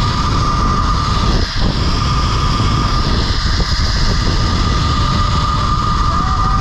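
Zipline trolley rolling along the steel cable at speed, a steady whine over a heavy rush of wind on the microphone.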